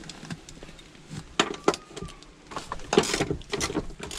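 Sharp metallic clicks and knocks of a tool and seat hardware as a front seat is unbolted from the floor of a Mitsubishi Lancer: two knocks about a second and a half in, then a quick cluster of them about three seconds in.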